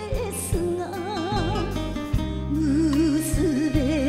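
Enka song: a woman sings a held, wavering melody with a wide, slow vibrato over an orchestral backing with steady bass and a few soft percussion hits.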